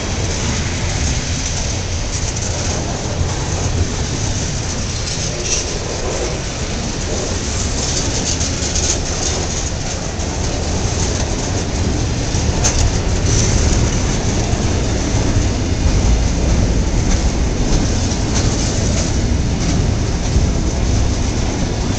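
Freight cars of a long CSX train rolling past close by: a steady rumble of steel wheels on rail with clickety-clack over the rail joints, growing a little louder in the second half.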